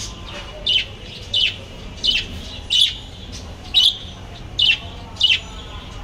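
Pet budgerigars chirping in their cage: a string of about seven short, high chirps, evenly spaced less than a second apart.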